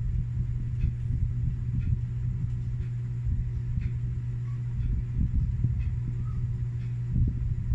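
Steady low hum with a restless rumble beneath it, and faint short ticks about once a second.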